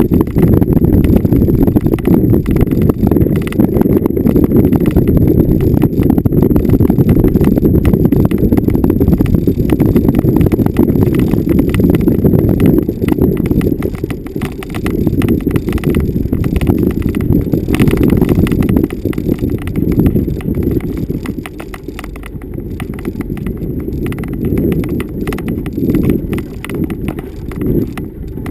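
A vehicle driving over rough, bumpy off-road ground: a dense low rumble full of rapid rattles and knocks, easing off for a few seconds about three-quarters of the way through before picking up again.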